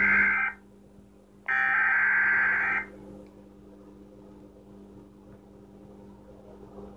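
Two electronic beep-like tones, each made of several steady pitches at once: one cuts off about half a second in, and a second lasts just over a second. A low steady electrical hum follows.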